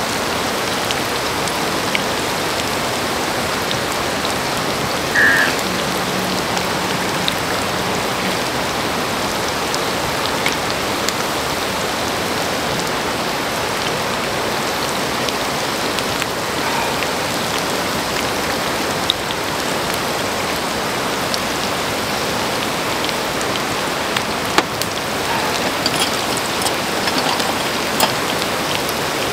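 Pork intestines and pork belly sizzling on a hot grill pan: a steady, even sizzle with scattered small pops and a few sharper clicks near the end. A short low hum sounds for a couple of seconds about six seconds in.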